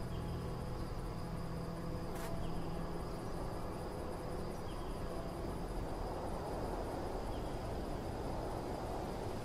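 Crickets chirping: a steady high trill with fast, even pulses, over a low rumbling background.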